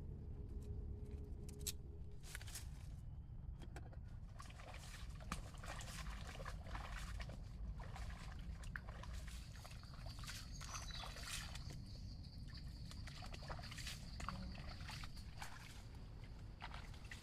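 Water sloshing and splashing in irregular small strokes, with light knocks, as of movement through shallow floodwater. A steady high-pitched whine joins about ten seconds in.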